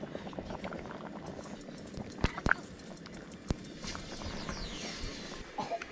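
A few scattered sharp clicks or knocks, three of them close together in the middle, over a faint steady background hiss.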